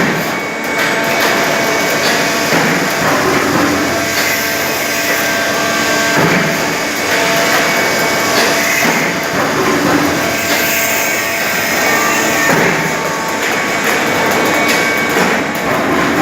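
Coordinate punching machine repeatedly punching steel strip fed from a coil, a continuous run of metal punch strokes over a steady machine hum.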